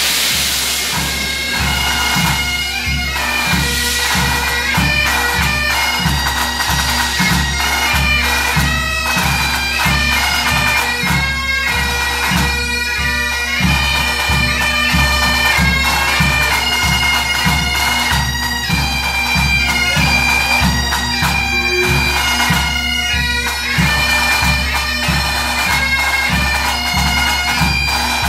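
Pipe band playing: Highland bagpipes with steady drones under a shifting chanter melody, and the band's bass and snare drums keeping a steady beat. Locomotive steam hisses under the music for the first few seconds.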